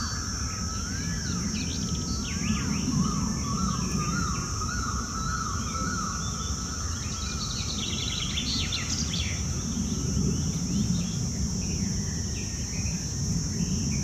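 Outdoor bird ambience: small birds chirping and whistling, with a wavering whistle that rises and falls repeatedly over the first few seconds. Underneath are a steady high-pitched hiss and a low rumbling noise.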